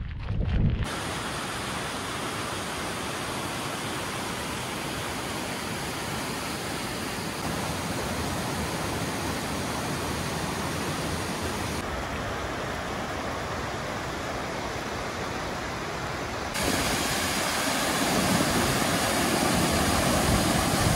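Steady rush of a mountain waterfall and white-water cascade tumbling over boulders, shifting twice and growing louder over the last few seconds.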